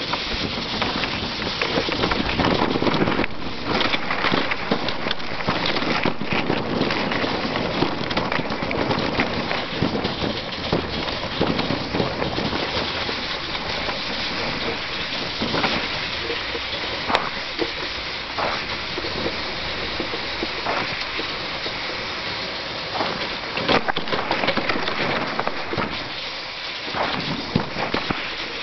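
Sled runners scraping over snow and river ice as a sled dog pulls the sled: a steady crackly rushing noise with many scattered sharp clicks.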